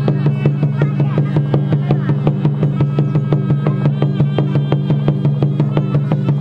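Khmer pinpeat ensemble music: a fast, even beat of struck percussion and ringing metallic tones over a steady held tone.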